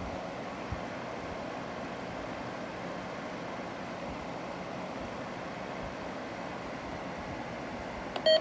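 Steady hiss of a weather-radio receiver's open channel with no programme audio. Just before the end, a loud electronic alert tone with a wavering, sweeping pitch starts abruptly.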